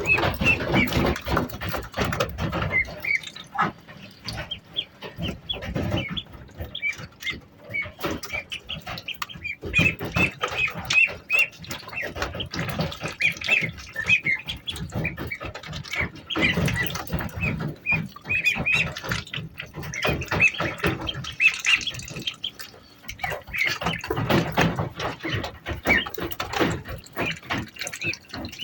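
Indian Runner ducklings peeping in many short, high, repeated calls, over a steady mix of knocks and rustling.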